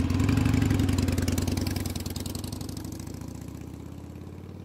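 Harley-Davidson Iron 883 air-cooled V-twin motorcycle engine idling steadily, fading away from about a second in.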